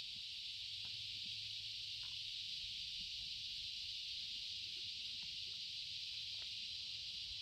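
Steady high-pitched insect chorus hissing without a break, with a few faint ticks.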